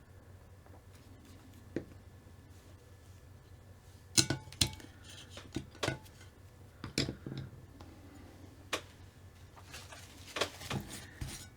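Small plastic and metal RC car kit parts clicking and tapping on a workbench as they are handled and fitted, a single click early then a run of irregular sharp clicks from about four seconds in.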